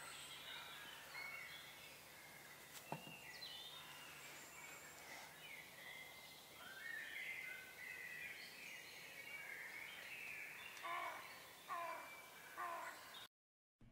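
Faint woodland ambience with several songbirds chirping and warbling, and a single sharp click about three seconds in. The sound cuts out completely just before the end.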